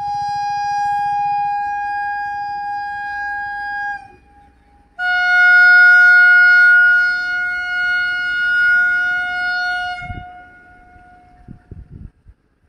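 Electric locomotive horn sounding two long blasts, the second slightly lower in pitch and longer than the first, with a brief gap between them. A few short low thumps follow near the end.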